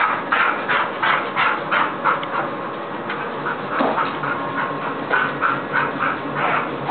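Border collie giving quick, short excited whines, about three or four a second, in two runs with a lull in the middle.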